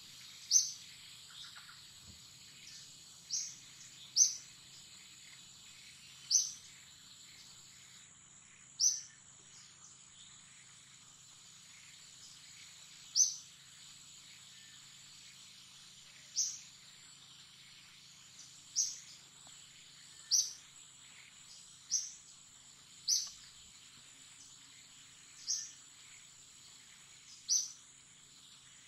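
Forest ambience: insects drone in one steady high tone, while a bird repeats a short, sharp call that slides downward in pitch, about a dozen times at uneven gaps of one to four seconds.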